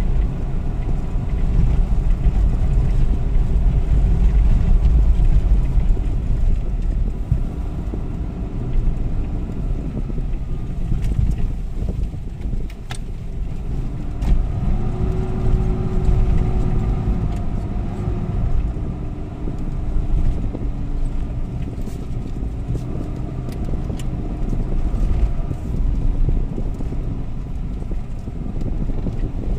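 A four-wheel-drive vehicle driving off-road: a continuous heavy engine and tyre rumble, with the engine's pitch rising and falling as it works over the terrain.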